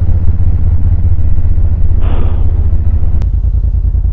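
2000 Suzuki VL1500 Intruder LC's liquid-cooled V-twin running loudly while the bike is ridden at road speed, a steady low pulsing exhaust beat. About two seconds in, a brief rush of noise passes over it and a single click follows. Near the end the engine beat turns more distinctly separate.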